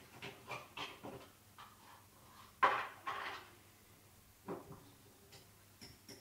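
Glass coffee jar and mug handled on a kitchen worktop: a series of light clicks and knocks, with a louder scraping rattle about two and a half seconds in, like the jar's lid being twisted off.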